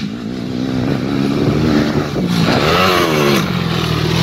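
Dirt bike engine growing louder as the bike approaches. A little past halfway through it revs up and falls back, then runs steadily.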